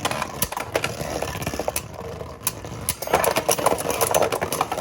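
Beyblade Burst spinning tops whirring and rattling in a plastic battle stadium, with frequent irregular sharp clacks as they strike each other and the stadium walls.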